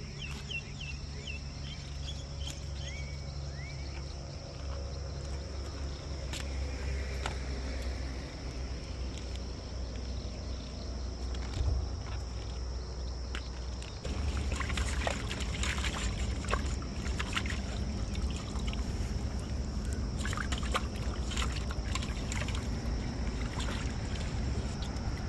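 Steady low rumble with a constant high insect drone. From about halfway through come repeated short scrapes and clicks as tilapia are scaled and cut with a knife on a plastic cutting board.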